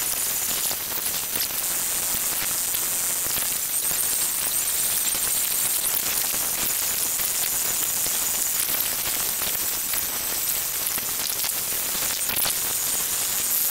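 Time-lapse, sped-up outdoor audio: a dense, steady hiss and crackle like static, scattered with many sharp clicks.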